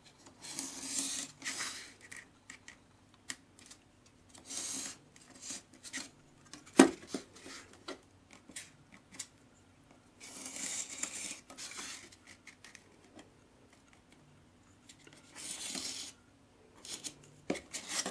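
Pencil drawing marking lines along a set square: four scratchy strokes about a second long, with small clicks of the tools being handled and a sharp knock a little before the middle.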